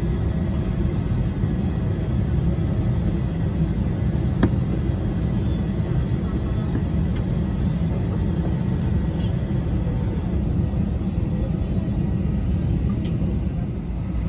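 Steady low rumble inside a parked Airbus A320 cabin, its air-conditioning running, with one sharp click about four and a half seconds in.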